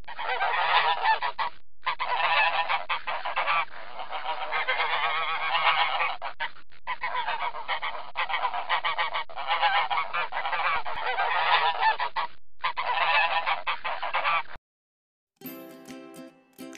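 A flock of geese honking and cackling without pause, broken by a few very short gaps, then cutting off suddenly. After a moment of silence, plucked-string music begins near the end.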